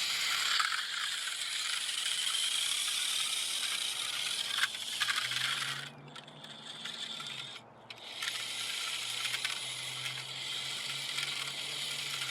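Vintage Taiyo RC Chevy truck running: its small electric motor and gears whirring with a rattle, stopping for about two seconds near the middle and then starting again.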